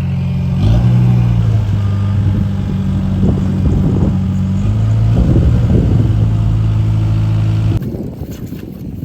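A heavy engine running steadily with a low hum, its pitch shifting up and down a couple of times. About eight seconds in it cuts off abruptly to wind noise on the microphone.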